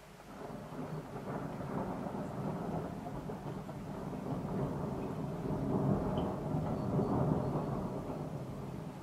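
Thunder rolling: a long, deep rumble that comes in suddenly, swells to its loudest about two-thirds of the way through, then slowly dies away.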